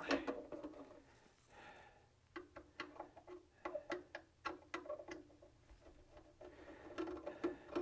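Light clicks and taps, a few a second, of a screwdriver and small screws being handled on the metal case of an Elecraft K3 transceiver while its top-cover screws come out.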